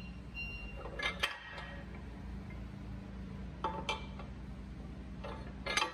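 Steel locking pins clinking against the steel clamp arm as they are pulled from their holes: a handful of short, separate metallic clinks over a faint low hum.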